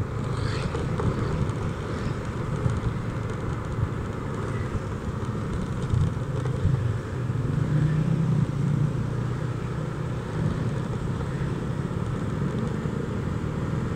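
2012 Honda Vario 125 scooter cruising, its single-cylinder engine running steadily under road and wind noise heard from the rider's seat, swelling a little a few times midway.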